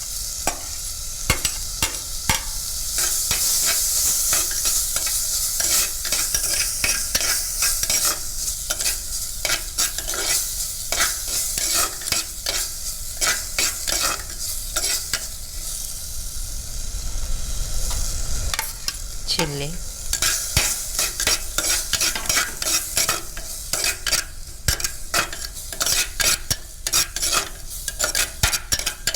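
Onion and beetroot frying in coconut oil in a pan, sizzling steadily while a spoon stirs them, scraping and tapping against the pan.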